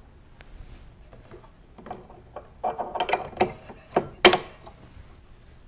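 Brass gas fittings and valve handles inside a stainless steel double gas outlet box being worked by hand: a run of small metallic clicks and rattles, with one sharp click just past four seconds in.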